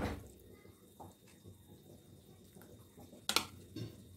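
Mostly quiet handling of stainless steel utensils while ghee is strained through a steel tea strainer into a steel bowl: a faint tap about a second in and a sharper metal clink near the end, followed by a softer one.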